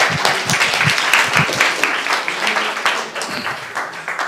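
An audience clapping, a dense patter of many hands that thins out and dies away toward the end.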